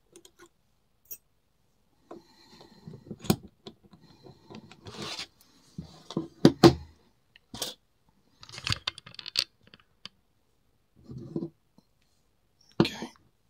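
Small metal lock parts and lockpicking tools being handled: scattered clicks, scrapes and clinks, with the sharpest knocks about six and a half seconds in and again near the end.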